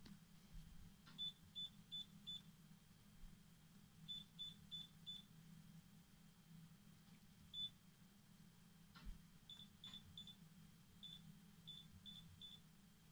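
Candy Rapido washing machine control panel beeping at each button press: about sixteen short beeps at one pitch, mostly in quick runs of three or four, as programs and options are stepped through.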